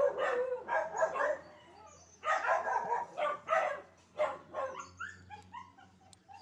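A dog whining and yipping in a run of short, high calls, some gliding up and down in pitch; the calls thin out after about four seconds.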